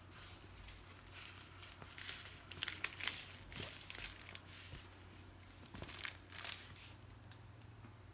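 Crinkling and rustling of plastic-wrapped diamond painting canvases and kits being handled and shuffled, in irregular bursts, loudest about three seconds in.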